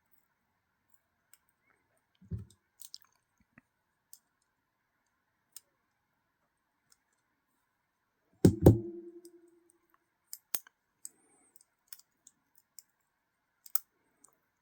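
Small metal knife parts and tools clicking and tapping as a folding knife is put back together by hand, with scattered light clicks and one louder knock that rings briefly about eight and a half seconds in.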